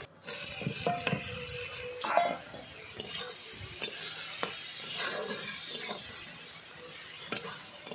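Diced potatoes sizzling in spiced oil in a black iron kadai, stirred with a steel spatula that scrapes the pan, with an occasional sharp clink of metal on metal.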